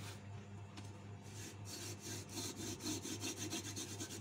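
Hand-drill friction fire-making: palms rubbing a long wooden spindle back and forth so its tip twists in a small wooden fireboard. The result is a rapid, rhythmic rasping that starts about one and a half seconds in.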